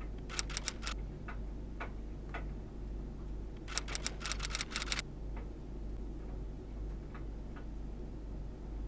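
Laptop keyboard typing: two quick runs of key clicks, one near the start and a longer one a little before halfway, with single taps between, over a steady low hum.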